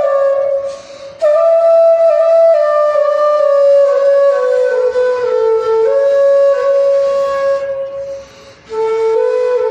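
Background music: a flute playing a slow melody that moves note by note, with two brief breaks between phrases.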